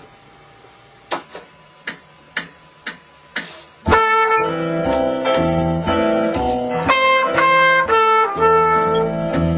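Band-in-a-Box backing track starting: a count-in of six short clicks, then about four seconds in a minor-key rhythm section with drums, bass and chords comes in and keeps a steady groove.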